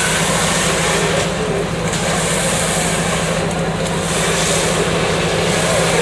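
Fire truck engine running steadily under load, a constant low drone, with a hiss on top that swells and fades.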